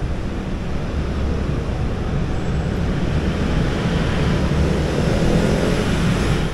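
City road traffic, mostly motorcycles passing close by, making a steady rumble of engines and tyres that grows a little louder toward the end.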